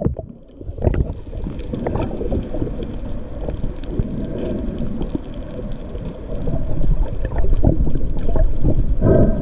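Crinkling, crackling underwater sound of manta rays feeding on plankton, heard through a submerged camera as a dense run of small irregular clicks. It comes in about a second in and grows louder near the end.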